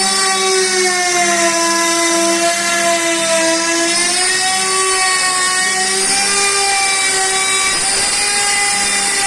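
CNC router spindle running at high speed while machining, a steady whine over the noise of the cut; the pitch sags a little under load about three seconds in, then recovers.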